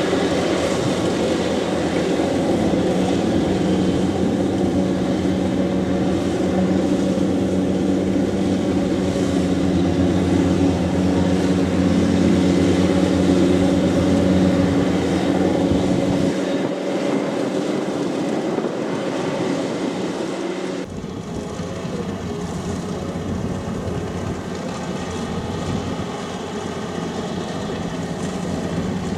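Kubota rice combine harvester's diesel engine running steadily under working load, with its sound changing abruptly about two-thirds of the way through.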